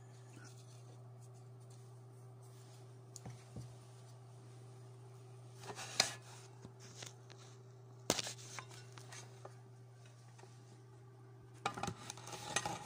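Handling noise from a camera being grabbed and moved: rubbing, scrapes and sharp knocks against the microphone, the loudest about six and eight seconds in and a cluster near the end, over a steady low hum.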